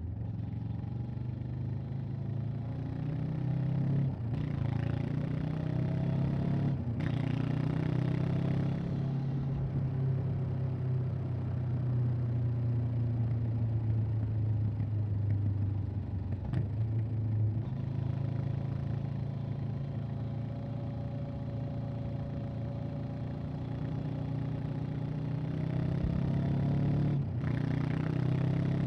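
Honda CB500X's parallel-twin engine and exhaust under way, its note rising and falling with throttle. There are a few short breaks in the note, with wind rush over the engine sound.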